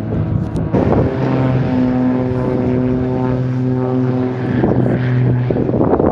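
Extra 300 aerobatic aircraft's piston engine and propeller droning steadily overhead for a few seconds, with wind buffeting the microphone before and after.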